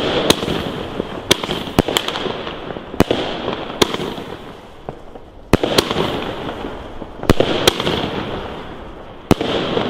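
Consumer firework battery firing shot after shot: about ten sharp bangs at uneven gaps of half a second to two seconds, each followed by a fading hiss.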